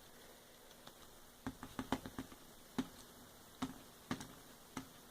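Light, irregular tapping: about eight short, sharp taps and clicks as a small hot glue craft piece is tapped down by hand.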